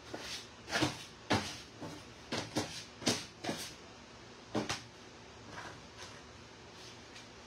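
Plastic dustpan scraping and knocking against the sheet-steel inner panel of a Vendo 81 vending machine door as rotten insulation is scooped out. About seven quick strokes come in the first five seconds, then only faint rustling.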